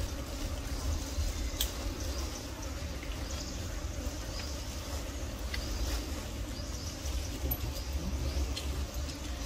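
Outdoor ambience: a low, uneven rumble with scattered faint clicks.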